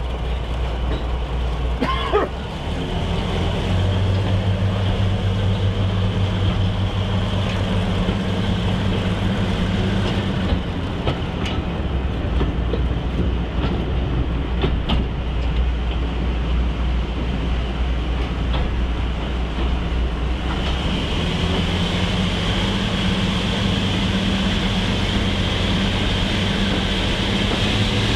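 Class 42 Warship diesel-hydraulic D821's twin Maybach engines working hard as it hauls the train, with the engine note changing about ten seconds in and again around twenty seconds, plus occasional sharp clicks from the wheels on the track.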